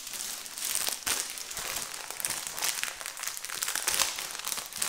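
Clear plastic packaging crinkling and crackling irregularly as it is handled and pulled open by hand.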